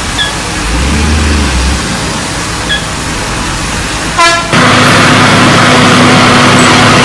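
Heavy construction machinery running, then about halfway through a loud steady horn-like blare starts suddenly and holds.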